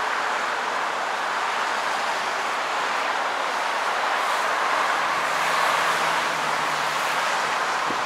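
Steady rushing outdoor background noise, with a faint low hum between about five and seven seconds in.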